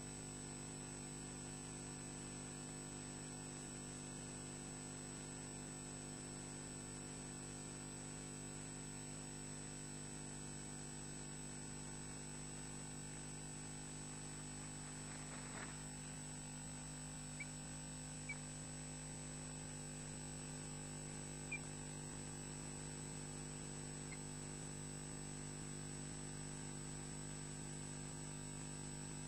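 Steady electrical mains hum made of several steady tones, on the sound feed of an osprey nest camera, with a few faint short high chirps in the second half.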